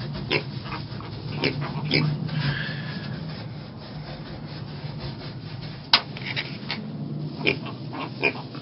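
Mini piglets moving about, with rustling and scraping and scattered short squeaks and grunts, over a low steady hum.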